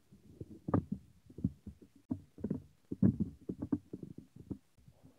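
Irregular low thumps and knocks, several a second, in uneven clusters.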